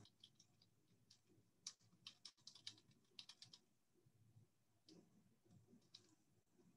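Faint typing on a computer keyboard: a quick run of keystrokes in the middle, then a few scattered clicks.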